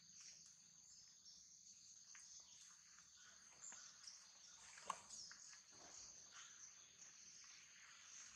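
Faint, steady high-pitched insect trilling outdoors, with a few small scattered clicks and one sharper click about five seconds in.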